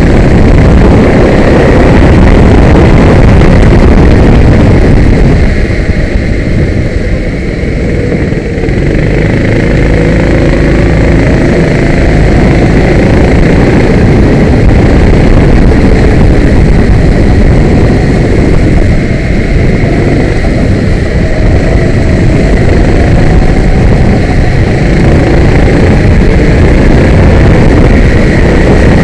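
Kart engine heard close up from an onboard camera, loud and continuous, its pitch rising and falling as the kart accelerates and lifts off through the corners, over a dense rush of wind noise on the microphone. It eases off for a few seconds around six to nine seconds in.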